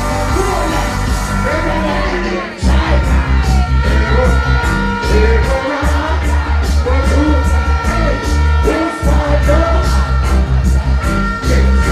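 Live dancehall reggae: a male vocalist sings and chants into a microphone over a loud backing rhythm with heavy bass and a steady drum beat. The bass drops out for a moment a few times, and there are shouts over the music.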